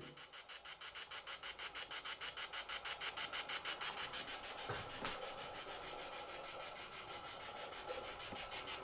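Rapid, evenly pulsing static hiss from a handheld ghost-hunting device, which smooths out for a few seconds in the middle before pulsing again. Two soft knocks come near the middle.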